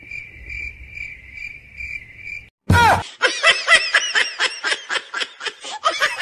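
Cricket chirping sound effect: evenly spaced chirps at one steady high pitch for about two and a half seconds. Then a sudden loud burst and a quick run of high, falling squeaks, about six a second.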